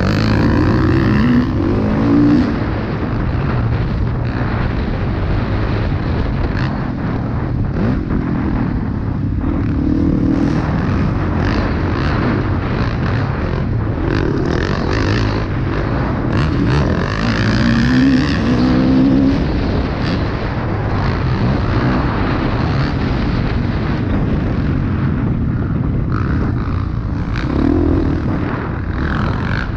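Dirt bike engine heard from the bike itself while racing on a motocross track, revving up and falling back again and again as the throttle is opened and closed and gears are changed.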